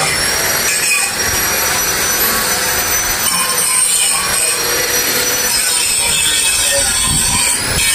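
A power tool or workshop machine running steadily: a harsh, even rasping noise with a thin, steady high whine above it.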